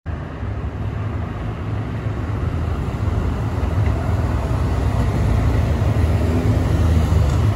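A line of police motorcycles riding past: a steady engine and road rumble that grows a little louder.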